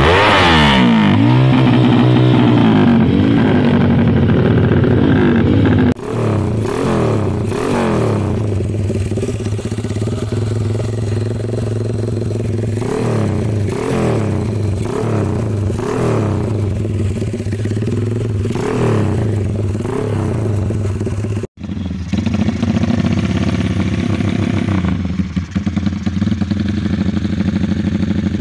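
Motorcycles with BSS aftermarket exhausts giving the 'helikopter' exhaust note, one clip after another. First an engine is revved up and down, then one is blipped in short repeated revs about once a second. After a brief cut, a Honda MegaPro idles with a few blips near the end.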